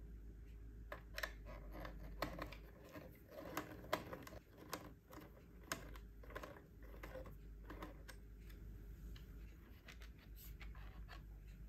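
Small screwdriver turning out the battery-cover screw on a plastic RC quadcopter remote controller: irregular light clicks and scrapes of metal on the screw and plastic, thinning out after about eight seconds.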